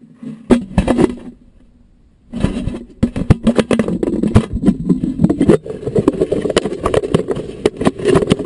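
Close-up handling noise on a GoPro camera lying on gravel: a short burst of crunching knocks about half a second in, then from about two seconds in constant scraping, rubbing and clicking as the camera is picked up and held in the hand.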